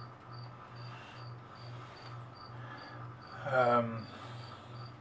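A cricket chirping steadily and evenly, about two and a half chirps a second. About three and a half seconds in comes a short voiced hum from a man.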